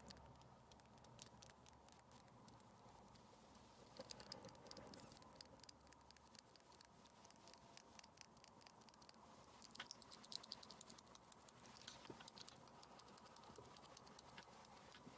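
Faint crinkling and crackling of a creased sheet of paper being pressed and smoothed flat by hand, in irregular runs that thicken about four seconds in and again around ten seconds in.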